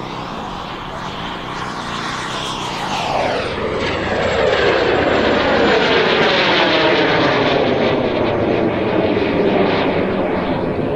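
Radio-controlled scale model jet flying past, its engine whine dropping sharply in pitch about three to four seconds in as it passes, then staying loud with a sweeping, rushing tone as it flies on.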